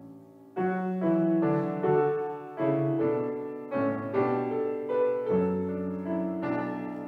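Piano playing a slow, gentle piece. A soft held chord gives way about half a second in to louder chords and melody notes, each struck and then fading.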